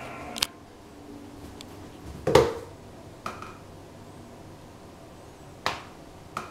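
Five short, sharp knocks and clicks, the loudest about two and a half seconds in, over a low steady hum.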